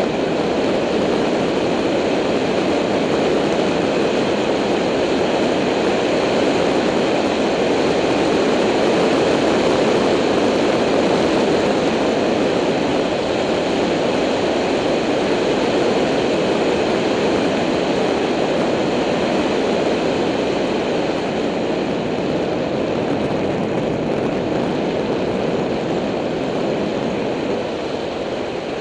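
Steady rush of wind and road noise on the microphone of a camera on a moving bicycle, with no distinct engine or voice, easing slightly near the end.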